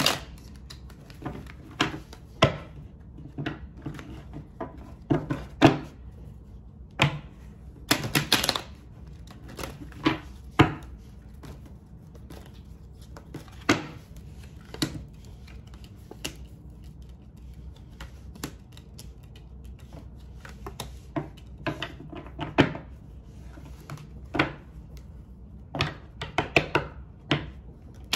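A tarot deck being shuffled by hand and cards handled and set down on a table: irregular snaps and taps, with a short flurry about eight seconds in and a quicker run of taps near the end.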